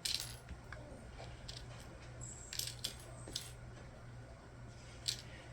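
Faint clicks and rustles of small plastic diamond-painting tools being handled and set down: a handful of light taps spread through, over a steady low hum.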